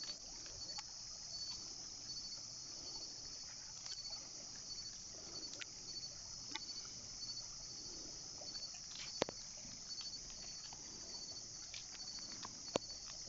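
Steady high-pitched chorus of night insects, crickets trilling in rapid even pulses, with a few faint sharp clicks, the loudest about nine seconds in and again near the end.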